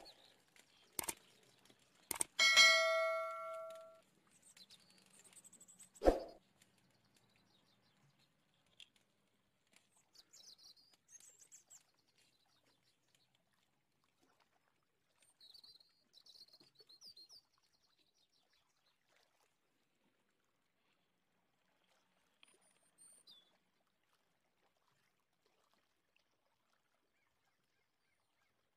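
A couple of sharp clicks, then a struck metal object rings out clearly and dies away over about a second and a half, followed a few seconds later by a single knock. After that, birds chirp faintly in short bursts.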